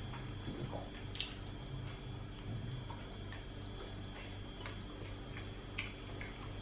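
Mukbang eating sounds: chewing and small irregular clicks and smacks as barbecued meat is handled and eaten by hand off plates, over a steady low hum.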